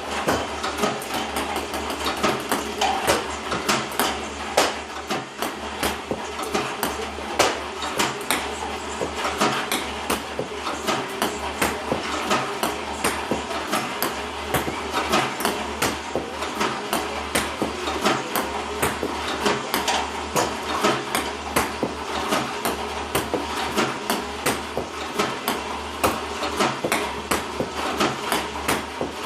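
iPong Pro table tennis robot running: a low motor hum that swells and fades about once a second, under a rapid, irregular clatter of clicks and knocks from the feed mechanism and the 40 mm balls. The owner says the robot is misfiring more and more often.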